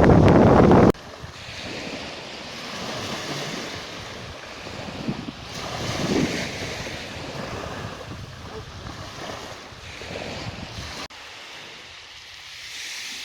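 Sea waves washing ashore, swelling and ebbing every few seconds. Loud wind buffeting the microphone in the first second cuts off abruptly.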